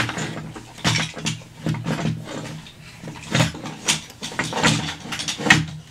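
Plastic parts of a toy transforming robot car clicking and knocking as they are twisted and folded by hand: a quick, irregular run of clicks.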